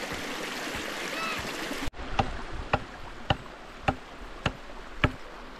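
Hatchet chopping wood on a log, sharp blows about one every half second, starting about two seconds in. Before that, a steady rushing noise with a bird chirping.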